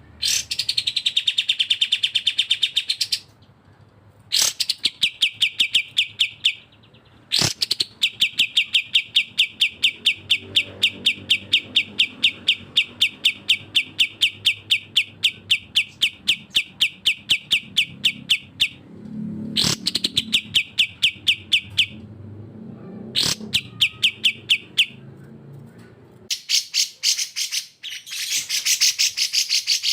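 Bulbul song: long, rapid rattling trills of evenly repeated notes, each trill opening with a short downward sweep. Near the end comes a harsher, higher chatter.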